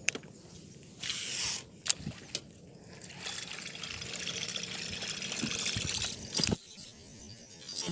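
Fishing lure being reeled back across the water surface: a steady splashing hiss from about three seconds in until past six seconds, ending with a sharper splash. Before it come a few clicks and a short rush of noise, the cast and the reel.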